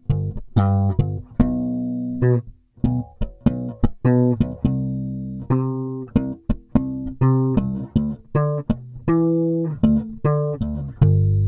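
Warwick Rockbass Streamer Standard four-string electric bass played fingerstyle through its neck pickup alone, with the master tone fully open. It plays a run of plucked notes with sharp attacks, some short and some held, ending on a long held note near the end.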